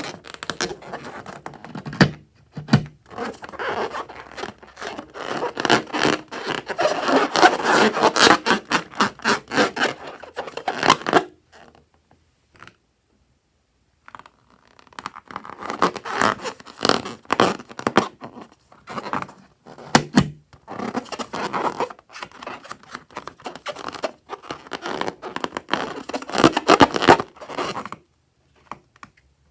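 Sticky crackling and scraping of slime being mixed and worked, in dense runs of quick clicks. It stops for a few seconds partway through.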